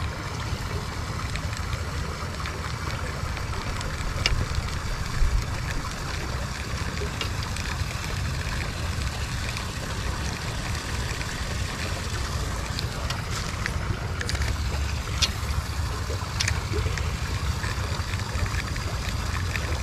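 Steady rush of flowing river water with a low rumble of wind on the microphone, broken by a few short, sharp clicks.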